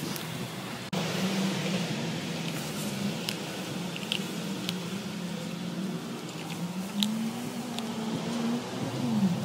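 Australian Kelpie puppy sniffing and rooting through a felt snuffle mat, with a few sharp crunches of kibble, over a steady low mechanical hum.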